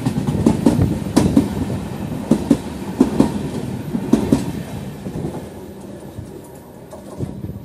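A passing express train's coach wheels clicking over rail joints in quick pairs over a steady rumble. The sound fades from about five seconds in as the last car goes by and the train runs away.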